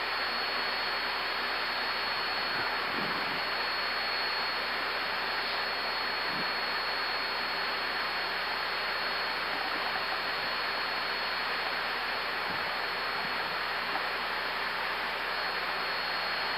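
Steady cockpit background noise of an Airbus A320 in flight on approach: an even hiss with a faint high steady whine.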